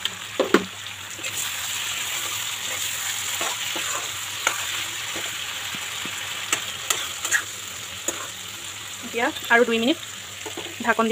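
Chicken pieces sizzling in hot oil and masala in a metal kadai while a steel spoon stirs them, its edge clicking and scraping against the pan now and then over the steady frying hiss.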